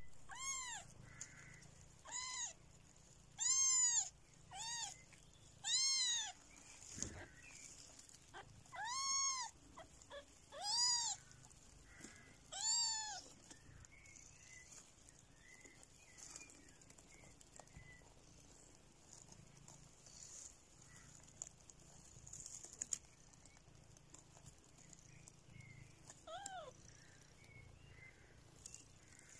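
Kittens meowing: about eight high calls that rise and fall in pitch, one every second or two, then a pause and one short falling meow near the end.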